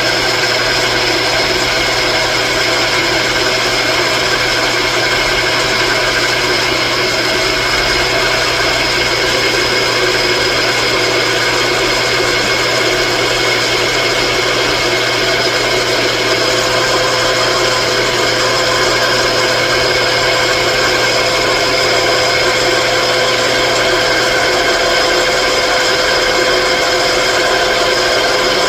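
Electric power tool motor running steadily without a break, a constant whine over a noisy hum.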